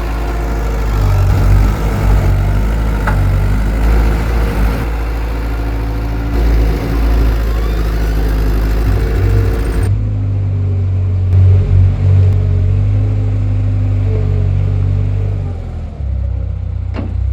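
Skid steer loader's diesel engine running with a steady low hum. About halfway through, the sound turns duller as the higher hiss drops away abruptly.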